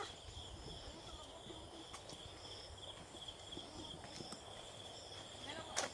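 Insects chirring steadily in the forest, a high pulsing buzz with a fainter higher trill over it, above a low rumble; a sharp knock sounds near the end.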